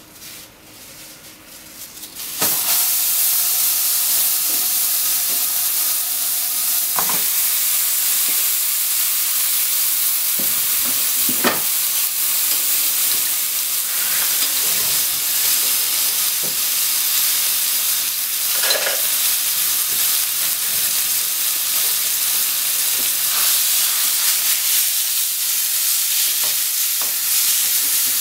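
Ground pork sizzling as it fries in a hot nonstick frying pan, the sizzle starting suddenly about two seconds in as the meat goes into the pan, then running steadily. A few scrapes and taps of a spatula breaking up the meat.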